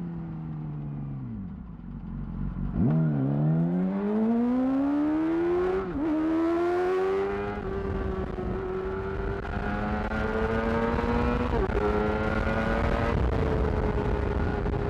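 2008 Yamaha R6 inline-four through a Termignoni exhaust, under way. The revs fall away for the first two seconds or so, then the bike accelerates with the engine note rising, dipping briefly at two upshifts, and settles into steady cruising revs.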